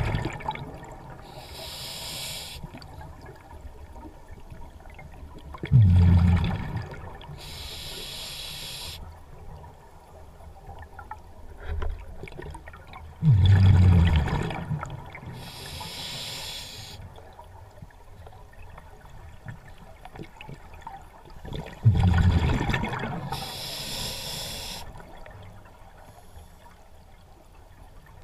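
Scuba diver breathing through a regulator underwater: each breath is a short hiss of inhalation, then a few seconds later a loud gurgling burst of exhaled bubbles. About four breaths, one every eight seconds or so, the bubble bursts being the loudest sound.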